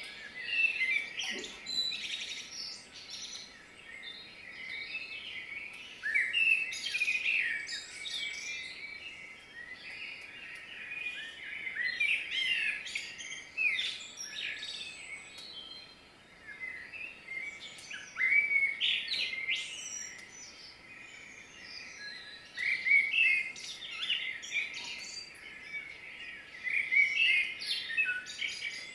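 Songbirds singing: short, chirpy, warbled phrases that come in clusters every few seconds.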